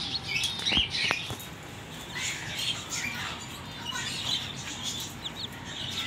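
Chicken chicks peeping: many short, high chirps overlapping one another, with a couple of light knocks about a second in.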